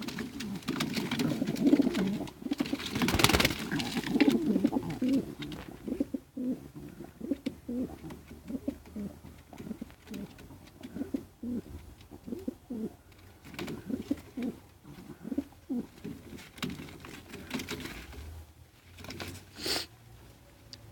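Male pigeons cooing over and over in short low pulses while squaring up to fight. A louder noisy burst comes about three seconds in, and a short one near the end.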